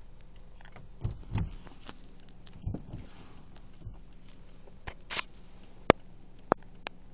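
Baboons' hands and feet on a car's windscreen and bonnet, heard from inside the car: a few dull thumps, a short scrape, then three sharp taps on the glass.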